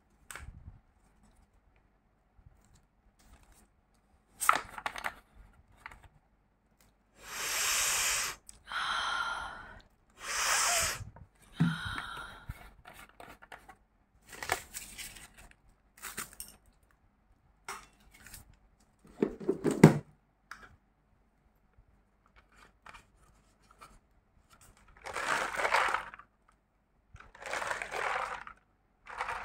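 Plastic bottles holding liquid and mothballs being handled: a run of crackling and rustling noises, most about a second long, with short gaps between.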